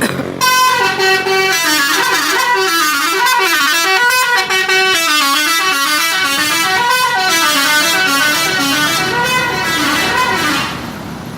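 Bus telolet horn, a multi-tone musical air horn, playing a tune of quickly stepping notes. It starts about half a second in, runs loud and unbroken, and cuts off suddenly near the end.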